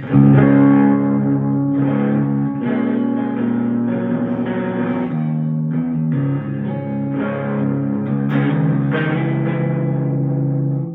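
Schecter Demon-6 electric guitar with active pickups, on the middle pickup position with its volume rolled back a little, playing sustained chords in drop C sharp through a Fender Blues Junior with spring reverb. The tone is nearly clean but still slightly gritty, the sound of active pickups trying to be played clean. The chords change every second or two and ring out until just before the end.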